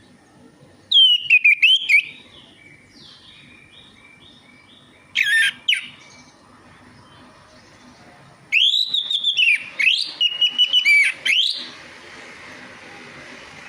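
Orange-headed thrush singing: loud bursts of fast, varied whistled phrases with sweeping notes, about a second in, again around five seconds, and a longer run from about eight and a half to eleven and a half seconds, with softer repeated calls between them.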